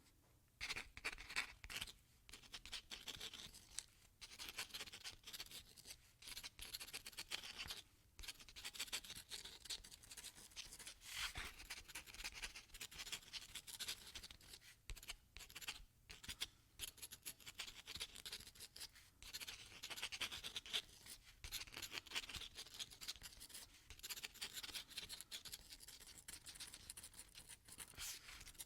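A pen writing on paper: quick, irregular scratching strokes, with short pauses between bursts of writing.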